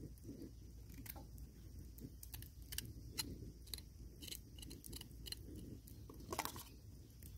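Small knife cutting small thorny brinjals held in the hand: a string of faint, crisp, irregular snips and clicks as the blade goes through the stems and flesh, the strongest about six seconds in.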